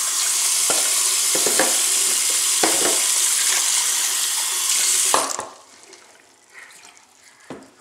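Bathroom sink faucet running steadily, with a few small knocks over the water, then turned off about five seconds in.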